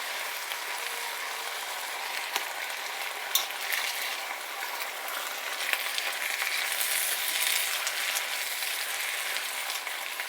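Chicken, tomatoes and cream of chicken soup sizzling in a pot over medium heat while being stirred, a steady hiss with a few sharp clicks of the stirring utensil against the pot.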